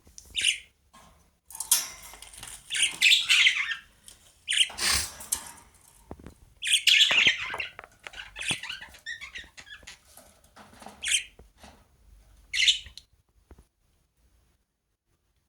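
Pet Australian parrots (budgerigars) chirping and squawking in repeated bursts of shrill calls, falling silent near the end.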